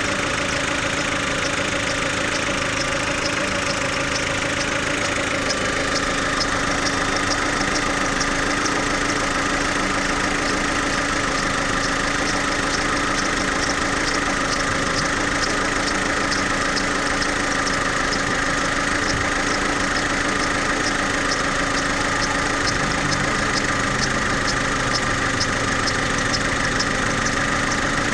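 Chevrolet Lacetti engine idling while it warms up, with a fast, regular high ticking over the running sound and a higher hiss that comes in about six seconds in. This is the extraneous noise the owner hears only on a cold engine, at about 60–75 °C coolant temperature, which dies away once the engine is warm.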